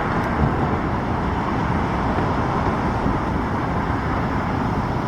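Steady rumble of outdoor airport and traffic noise, with no distinct event standing out.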